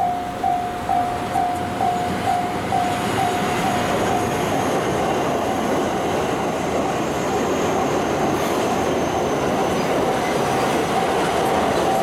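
Japanese level-crossing warning bell ringing at a steady pace of about two dings a second. From about four seconds in it is covered by the steady running noise of a JR West 227 series electric train passing the crossing, and the bell comes back through near the end.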